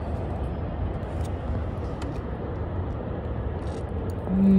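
Steady low outdoor background rumble with a few faint ticks. Near the end comes a short hummed "mm" from the person biting into the stuffed squid.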